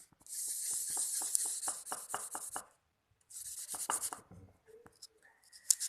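A charred candlenut rubbed hard against a metal spoon in quick scraping strokes to press out its oil. There are two runs of strokes with a short pause between them, and a sharp click near the end.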